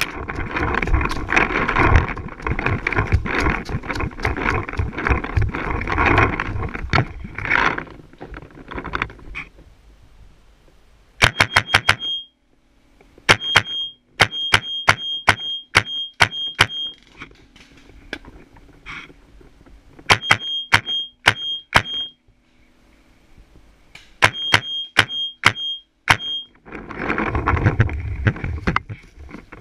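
Proto Reflex paintball marker firing four quick strings of sharp shots, several per second, in the middle of the stretch. Before that comes fast movement through dry leaves and brush, with rustling and footsteps, and the movement starts again near the end.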